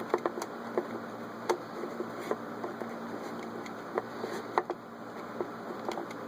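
Irregular small clicks from turning the setting knob of a Westclox Dial-Lite electric alarm clock, over a steady low electric hum.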